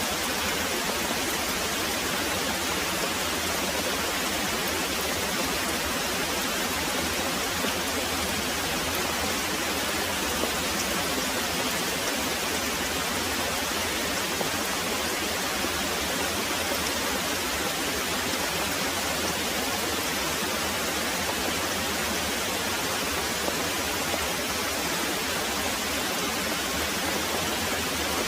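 Very heavy rain pouring steadily: a dense, even hiss with no let-up and no thunder.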